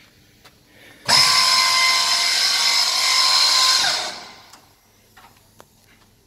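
The 27-spindle drilling head of a Vitap Alfa 27T boring machine starts abruptly about a second in, runs steadily with a high whine for nearly three seconds, then shuts off and spins down with falling pitch.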